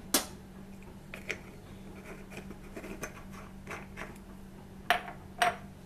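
Kitchen handling noises: a sharp click just after the start, faint scattered ticks and scrapes, and two sharper clinks near the end, over a steady low hum.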